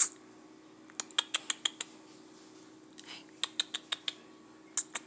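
Domestic cat grooming itself: quick runs of sharp tongue-licking clicks, about six a second, in short bursts with pauses between.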